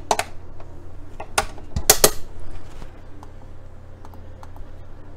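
Clinks and clacks of a Crock-Pot slow cooker's glass lid being set and settled on the pot, with two loud clacks about one and a half and two seconds in. Faint clicks of its control-panel buttons being pressed follow near the end.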